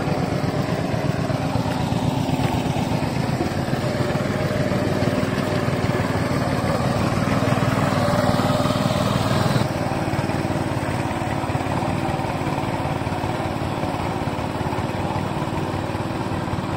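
Mini power tiller's small engine running steadily under load as its plough blade churns through wet paddy mud. The tone of the engine changes abruptly about ten seconds in.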